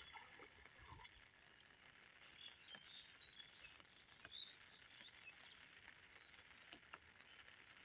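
Near silence: faint outdoor ambience with a few faint, short bird chirps.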